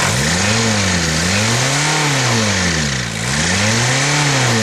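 1977 Volkswagen Rabbit's diesel engine being revved up and dropping back, its pitch rising and falling three times.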